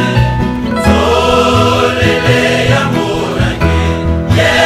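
A choir singing a gospel song with a bass line beneath.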